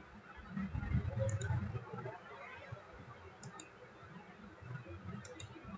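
Computer mouse clicks: three quick pairs of sharp clicks, about two seconds apart. A low muffled rumble under the first couple of seconds is the loudest part.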